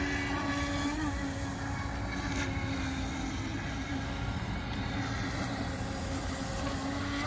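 Radio-controlled speedboat's motor running steadily as the boat circles on the water: a steady hum whose pitch wavers slightly.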